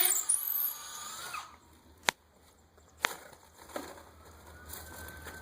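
Cordless hammer drill spinning down as the trigger is let go at the end of drilling a hole in a masonry block column, followed by two sharp clicks about a second apart and a fainter one after.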